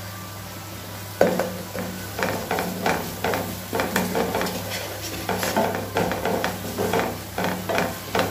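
Wooden spatula stirring and scraping fried onions, chillies and spices around a nonstick frying pan, over a light sizzle. The strokes start about a second in and come roughly twice a second, over a steady low hum.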